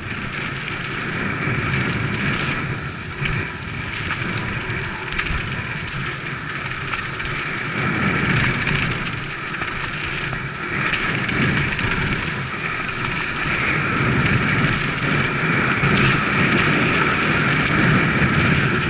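Mountain bike riding fast down a dirt trail: steady rumble and rattle of tyres and frame over rough ground, with wind rushing over the microphone.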